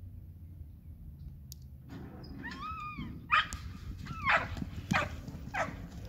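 A dog yelping and whining in a few rising-and-falling calls from about two seconds in, then barking sharply about four times, roughly one bark every two-thirds of a second.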